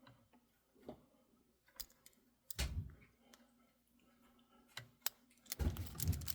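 Small metal clicks and scrapes of a lock pick and tension wrench working the pins of a Master Lock 570 padlock. There are louder rattling handling noises about two and a half seconds in and again near the end.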